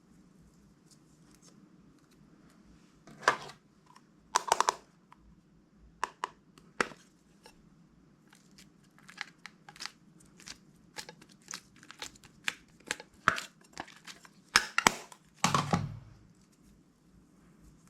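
Slime being squished and stretched by hand, giving irregular sticky pops and crackles, with a few louder squelching bursts.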